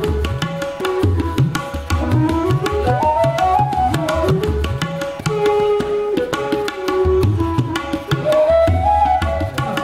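Background music: a melody that rises and falls in slow arcs over a steady, repeating low drum rhythm.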